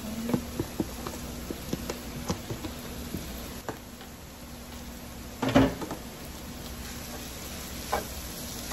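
Potatoes and onions frying in oil in a cast iron skillet, crackling with small pops in the first few seconds as canned corned beef is dropped on top. A single loud knock comes about five and a half seconds in, and a spatula clacks against the pan near the end as the stirring begins.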